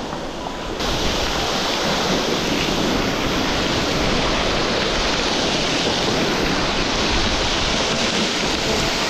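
Waterfall spray pouring onto the rocks and sea right beside the kayak, with surf churning around the hull: a steady, loud rush of falling and splashing water that gets louder about a second in.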